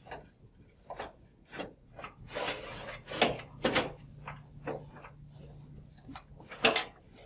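Modules being slid into a GE Multilin UR protective relay chassis: scraping as a module runs along its track, with several sharp clicks and knocks as modules seat and latch. The loudest click comes near the end.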